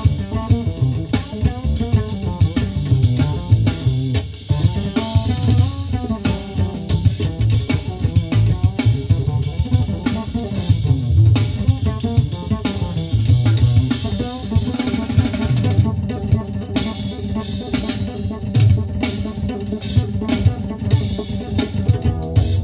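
Instrumental jazz fusion with a busy drum kit (bass drum and snare) and plucked bass and guitar-like lines, played back over a car audio system and heard inside the cabin.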